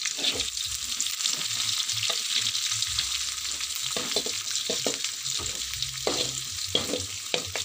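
Oil sizzling in a metal wok as aromatics and dried tiny shrimp are stir-fried, with a metal spatula scraping and clinking against the pan at irregular moments.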